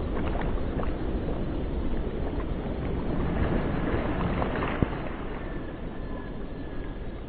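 Wind rumbling on the microphone over water sounds from a double scull being rowed: oar blades working the water, with a few light knocks.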